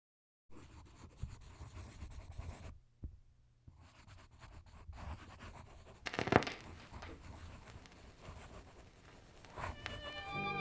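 Pen scratching on paper in short, irregular strokes, with one louder stroke about six seconds in. Violin music comes in near the end.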